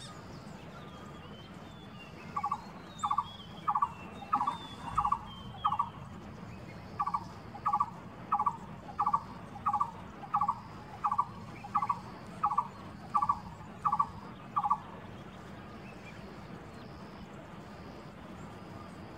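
A barbet calling: a long series of short, evenly spaced notes, about one and a half a second, with a brief break after the first six and stopping about fifteen seconds in.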